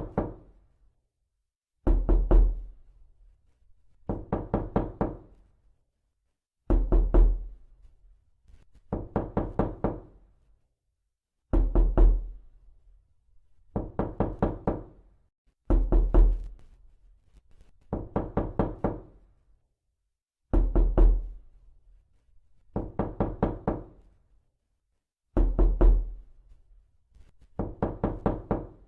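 Knocking on a door, repeated in quick bursts of about four to six raps, with a new burst roughly every two to two and a half seconds.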